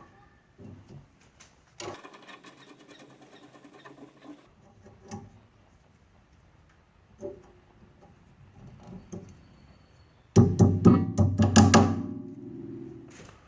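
Guitar-based music, loudest about ten seconds in, where a chord rings out and fades over the next couple of seconds, with scattered faint clicks and knocks in the quieter stretches.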